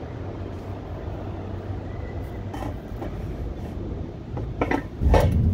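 Steady road rumble of a vehicle driving, with a few sharp knocks about four and a half seconds in, after which the low rumble suddenly grows much louder.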